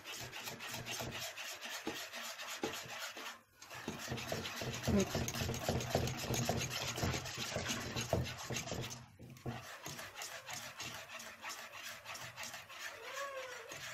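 A utensil stirred quickly round a metal pot of thickening béchamel sauce, scraping and rubbing against the pot in a fast, even rhythm that breaks off briefly twice.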